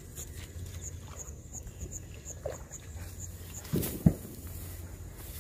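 An insect chirping in short high pulses, about three a second, over a low steady rumble. About four seconds in come two sharp thumps close together, the second the loudest.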